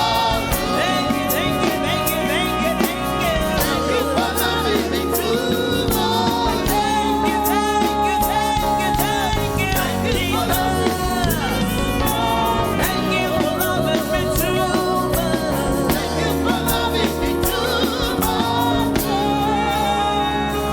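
Gospel praise and worship music: singers over a band with a steady beat.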